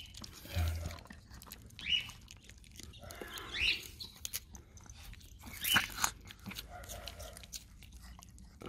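Dogs biting and chewing a fresh green plant stalk held out by hand: several crisp crunches, a second or two apart, some with a short high squeak, and quieter chewing between them.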